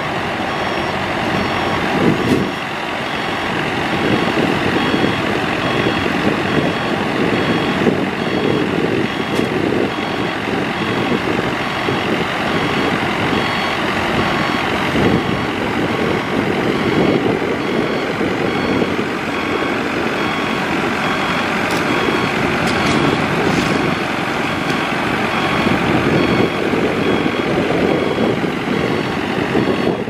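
Maxxi Bimo 102L rice combine harvester running steadily, engine and threshing machinery going as grain is bagged from its outlet, with an electronic beeper sounding in a steady repeating pattern over it.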